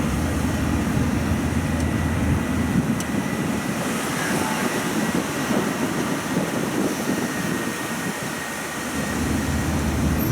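Steady running noise of a tourist road train on the move: a low engine hum and road rumble, with a faint steady high tone.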